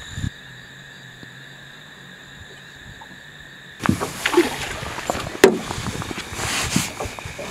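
Water sloshing and splashing against a small boat, with irregular knocks on the hull, starting suddenly about four seconds in after a quiet stretch with only a faint steady hum.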